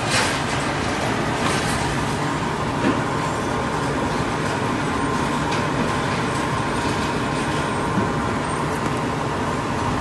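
Steady running noise of a heat-shrink tunnel and its wire-mesh conveyor, with a faint steady tone and a few light knocks.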